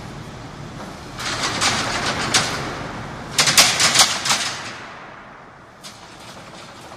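Small crawler excavator's engine running as it turns on a concrete floor, its tracks clattering and scraping; a burst of rapid clacking from the tracks about three and a half seconds in, then it settles back to a steady engine noise.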